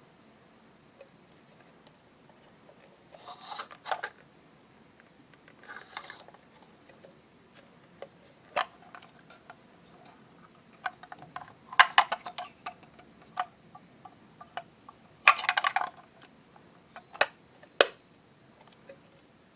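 Small plastic toy refrigerator handled by hand: scattered sharp clicks and taps as its doors are opened and snapped shut, with a few short bursts of plastic rubbing and scraping.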